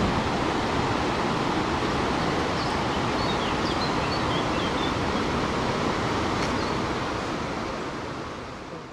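Steady rushing of a tall waterfall, with a few faint high chirps a few seconds in; the sound fades out near the end.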